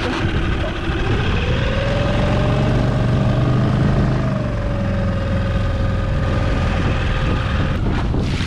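A Yamaha 6 hp outboard motor runs and rises in pitch about a second in as it is throttled up, then holds a steady drone. Near the end the motor's tone stops, leaving wind and water noise.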